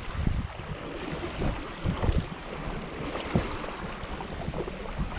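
Wind buffeting the microphone in irregular low gusts, over a steady background hiss.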